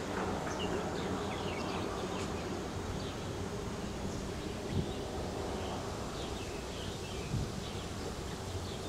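Pasture ambience: a steady background of low rumble and hiss with insects buzzing and faint, scattered bird chirps, and two brief soft thumps about five and seven and a half seconds in.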